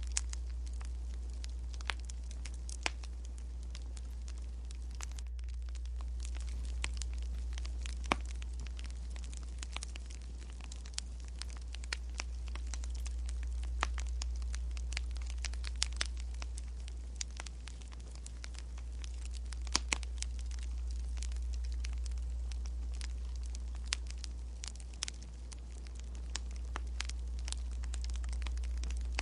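Wood fire crackling: scattered sharp pops at irregular intervals over a low rumble that slowly swells and fades.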